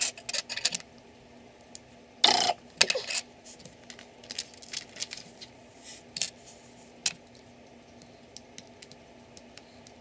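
Plastic LEGO pieces being handled and pressed together: scattered sharp clicks and small clatters, with a louder clatter a little over two seconds in.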